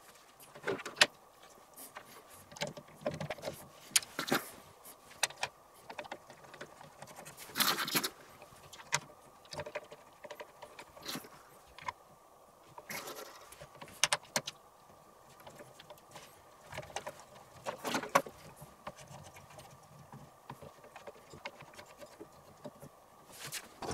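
Scattered clicks, taps and short rattles of hard plastic and metal parts being handled, as an ASUS ROG Strix LC 360 AIO water cooler's pump head is set onto the CPU and fastened down, over a faint steady hum.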